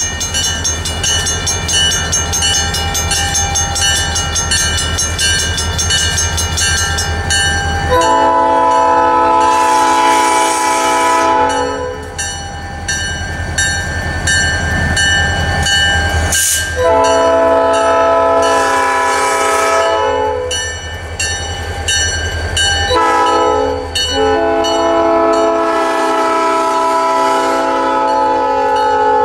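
EMD SD40-2 diesel locomotive running past with its 16-cylinder two-stroke engine, then its multi-note air horn sounding a long, a long, a short and a final long blast: the grade-crossing signal. A single sharp click comes between the second and third blasts.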